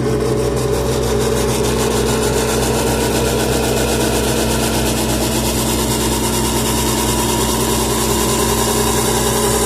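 Engine idling steadily: an even, unchanging hum with a fast regular pulse.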